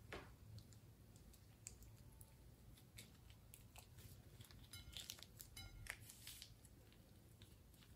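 Faint crinkling of a plastic piping bag and soft sticky clicks of slime as glitter slime is squeezed out of the bag, with a couple of brief squeaks about five to six seconds in, over a low room hum.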